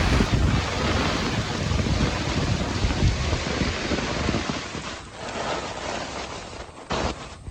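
Heavy tropical downpour with strong gusting wind and a deep, shifting rumble in the low end, easing somewhat in the second half.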